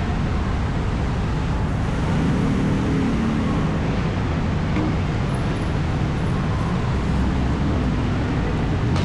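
Steady city road traffic: car engines running and tyres passing on the street.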